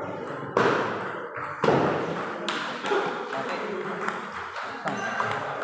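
Table tennis rally: the celluloid-type ball clicking off paddles and the table in a string of sharp pings. The two loudest hits come about a second apart near the start, followed by lighter clicks.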